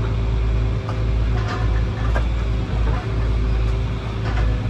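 Excavator's diesel engine running steadily, with occasional sharp knocks over it.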